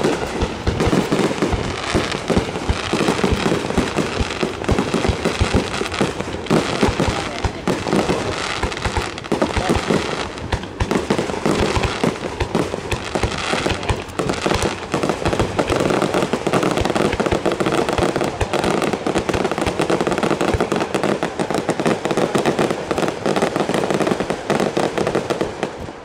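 Aerial firework shells bursting in a rapid, unbroken barrage: dense overlapping bangs and crackle with hardly a gap between them.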